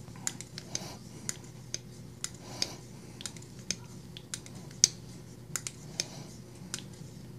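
Blade of a titanium front-flipper folding knife (Griffin Co. Scout F3) clicking past its detent as it is worked back and forth under light pressure, breaking in the freshly oiled detent ball's track. The clicks are sharp, irregular and come about two a second, with the loudest just under five seconds in.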